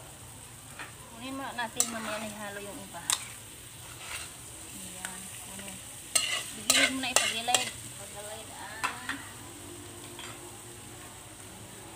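Stir-frying in a wok: a utensil scraping and stirring diced hotdog and vegetables against the metal pan, over a steady frying sizzle. A cluster of scrapes and knocks comes about six to seven and a half seconds in, as more of the mixture is scraped in from a bowl.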